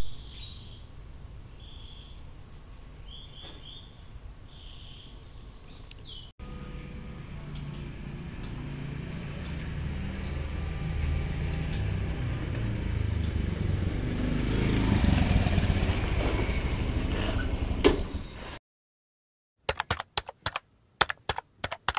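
Birds chirping over a low outdoor rumble, then a motor scooter's engine drawing closer and growing steadily louder for about twelve seconds until the sound cuts off abruptly. After a second of silence comes a quick, irregular run of sharp clicks, like typing.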